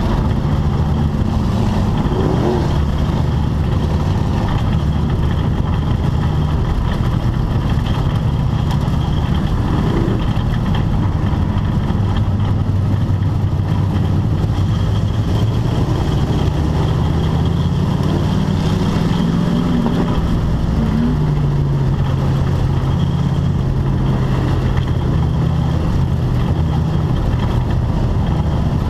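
Race car engine running loud and steady, heard from inside the cockpit, with its pitch climbing slowly past the middle and dropping back a few seconds later.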